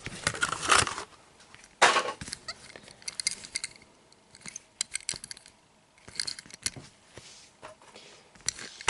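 A carded diecast toy car being handled: the plastic blister and card crackle and click in irregular bursts, with small hard clinks.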